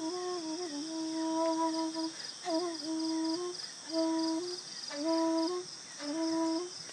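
Transverse flute playing a slow melody in short phrases: each phrase slides in with a quick ornament and settles on a held low note, with brief breaths between phrases.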